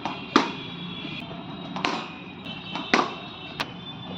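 Cricket bat striking a cricket ball: three sharp cracks about a second apart, the first and last loudest, with a fainter knock near the end.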